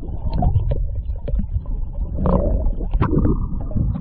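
Muffled rumbling and gurgling of river water heard by a submerged camera, with scattered soft knocks and bubbling as hands move a fish in the current.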